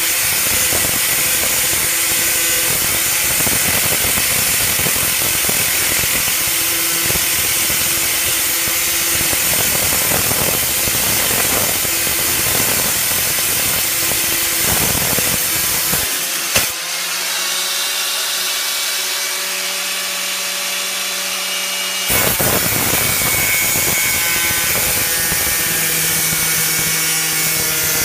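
Hyper Tough angle grinder cutting through a thick steel Stanley nail claw, a dense steady grinding that goes on and on through tough metal. A little past the middle it breaks off with a click, and for about five seconds the disc runs free with a steady whine before it bites into the steel again.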